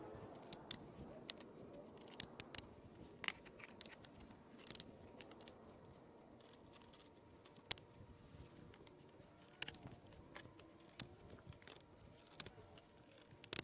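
Scattered light clicks and knocks, a dozen or so at irregular intervals, from composite garden-bed boards and plastic snap-lock brackets being handled and fitted together, over a quiet background.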